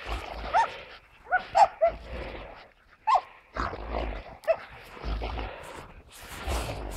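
Laika hunting dogs worrying a downed game animal in snow. Several short, high yelps and whines are heard, with rustling and scuffling as the dogs tug and bite.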